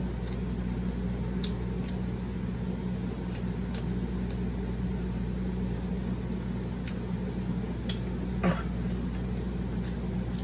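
Eating sounds: a few faint clicks and smacks from chewing, with one louder smack about eight and a half seconds in, over a steady low hum from a fan or air conditioner.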